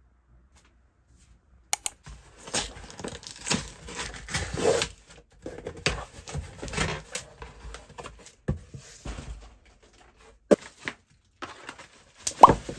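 A cardboard shipping box being torn open by hand: uneven ripping and rustling of cardboard and tape in several spells, with a few sharp clicks. Near the end come short loud pops with a quick rise in pitch.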